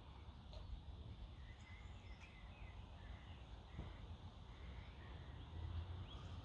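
Quiet riverside ambience: faint, short bird chirps over a low, steady background rumble.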